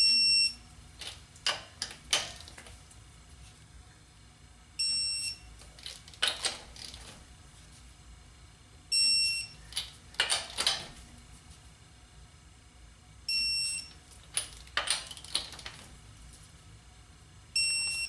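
Digital torque wrench beeping as each lug nut reaches the set 80 foot-pounds: five short beeps about four seconds apart, with clicks of the wrench between them.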